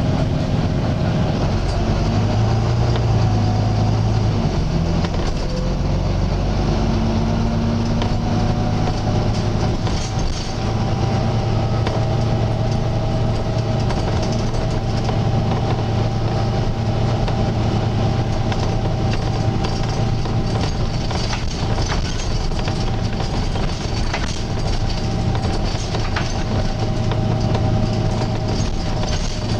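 Volvo B9TL double-decker bus heard from on board while driving: diesel engine and drivetrain running under load with road rumble and scattered rattles. A steady whine-like tone runs through it, the slight groaning noise this bus has.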